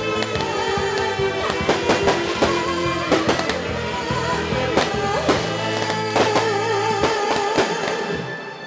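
Live band playing the instrumental ending of a slow pop song, a held melody line with vibrato over a low accompaniment that drops out about seven seconds in. Irregular sharp cracks sound over the music.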